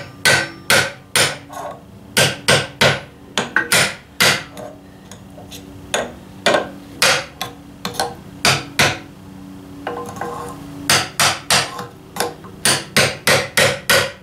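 Hand hammer blows driving a new seal down a 1944 Ford 2N tractor axle shaft toward its seat. The strikes come about three a second, pausing twice, over a low metallic ring.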